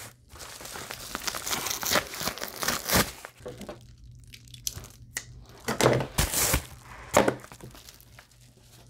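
A padded paper mailer being slit with a knife and torn open, its paper crinkling and ripping. The crinkling eases off about halfway through, followed by a few louder rustles of the paper.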